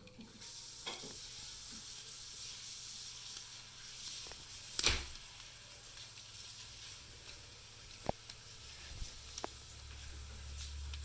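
Small metallic clicks and scrapes of a pick and tension wrench working inside a residential door-handle lock, over a steady hiss, with a louder knock about five seconds in.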